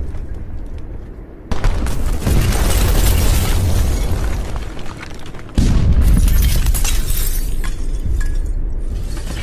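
Explosion sound effects: two heavy blasts, one about a second and a half in and another about four seconds later, each starting suddenly and followed by a long, decaying rumble with crackling debris.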